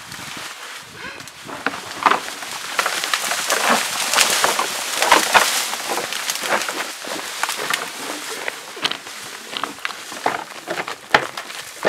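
Two bull moose fighting in brush: antlers clacking and branches cracking and rustling in a dense run of sharp knocks, busiest in the middle.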